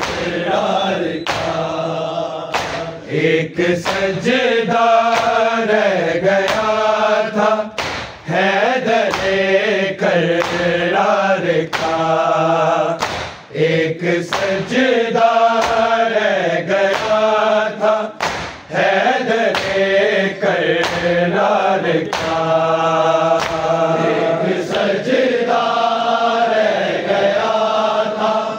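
Group of men's voices chanting a noha, an Urdu Shia mourning lament, in phrases over a steady low hum.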